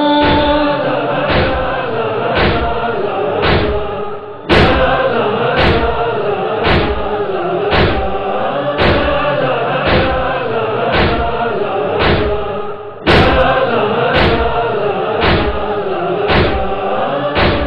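Urdu noha, a Shia lament, chanted by voices over an even, heavy beat about once a second, the rhythm of matam chest-beating. The sound dips and cuts back in abruptly twice.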